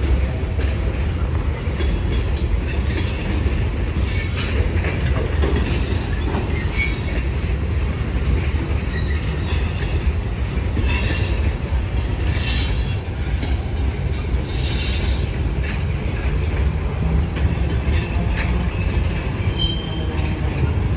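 Freight train of boxcars rolling past on the rails: a steady rumble of steel wheels on track, with brief high-pitched wheel squeals every second or two.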